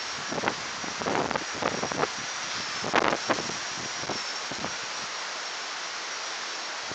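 Strong gusting wind buffeting the microphone, with several heavy gusts in the first half. Under it runs a faint, steady high whine from a Blade mCP X brushless micro helicopter's motor and rotors.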